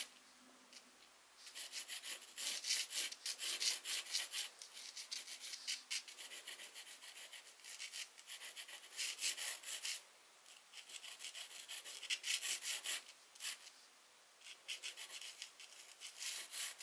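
Pencil sketching: graphite scratching across the sheet in quick, short strokes, with a few brief pauses.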